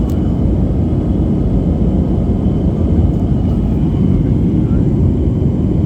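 Boeing 737 engines and airflow heard inside the cabin: a steady, low rumble during the climb after takeoff.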